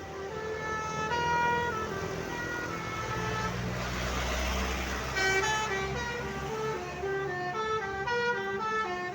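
Basuri multi-tone 'telolet' bus horn playing a tune of quick stepped notes, several pitches sounding at once. About four seconds in, the rumble and rush of the passing bus swell under the horn for a second or two.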